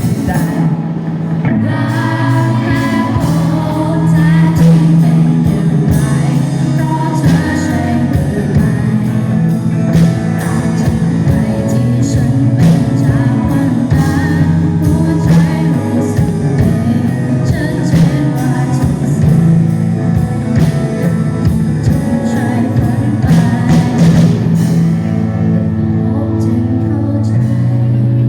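A band playing a Thai pop-rock song with a singer, over guitar, bass and drum kit.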